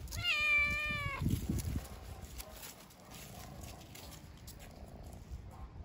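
A cat meows once, a single call of about a second that starts slightly higher and settles a little lower, followed by a few soft thumps.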